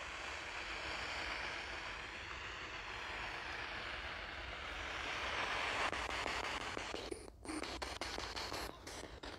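Handheld spirit box radio giving out a steady hiss of white-noise static at lowered volume as it scans between radio stations. After about seven seconds the static turns choppy, broken by short gaps and clicks.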